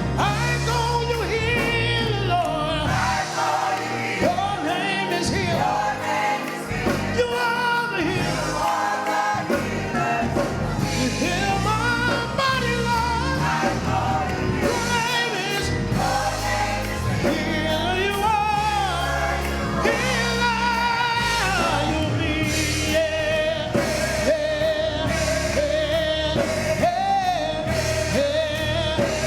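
Gospel music: a choir and singers with a band of bass, drums and keyboard.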